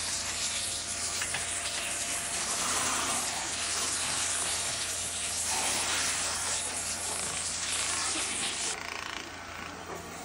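Metal-spinning lathe: a hand-held spinning tool pressed against a rotating aluminium blank gives a steady hissing scrape that cuts off near the end, over a steady low hum.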